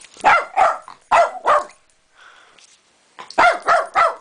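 Small dog barking in an agitated fit: four quick barks, a pause of about a second and a half, then three more.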